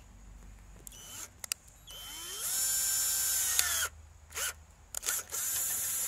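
Cordless drill drilling holes in aluminum coil tubing: it spins up with a rising whine and runs steadily for about a second and a half. It then gives a few short blips and another brief run near the end.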